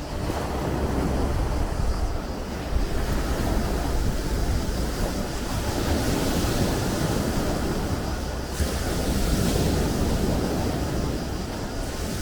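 Sea waves washing and breaking, the surf hiss swelling and falling every few seconds, over a low rumble of wind on the microphone.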